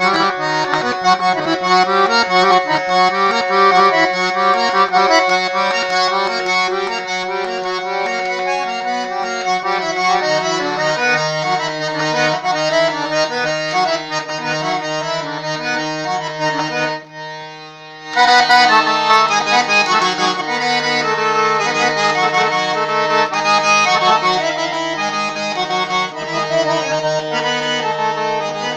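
Piano accordion played solo: a traditional-style melody over sustained bass notes, with a brief drop in volume about seventeen seconds in before the full sound comes back.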